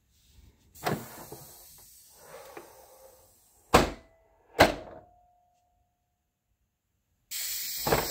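Retractable main landing gear and strut covers of a scale F6F Hellcat model cycling: a hiss with light knocks as the gear folds up, then two sharp thunks a little under a second apart as it locks up and the covers close. Near the end a steady hiss starts again, with knocks, as the gear comes back down.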